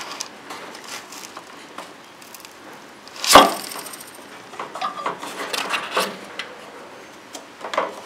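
Handling noise as a refrigerator's defrost drain tube is pushed back onto its drain nub: light rubbing and scraping, one sharp knock about three and a half seconds in, then a few small clicks and knocks.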